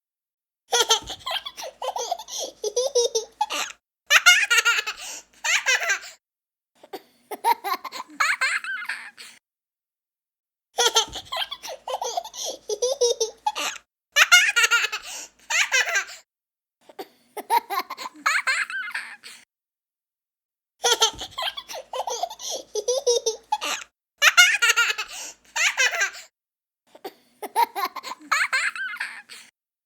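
A young child laughing in fits of belly laughs and giggles, broken by short pauses. The same stretch of laughter repeats about every ten seconds, as a loop.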